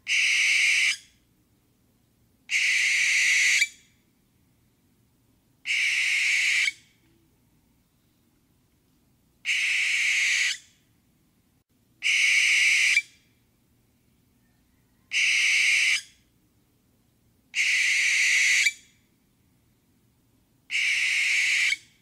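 Barn owl giving its screech call eight times, each a hissing shriek about a second long, a few seconds apart.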